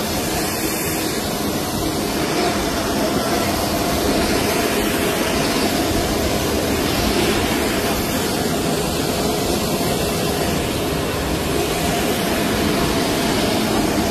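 Jet aircraft engine running on the apron: a steady, loud rushing roar with a faint steady whine.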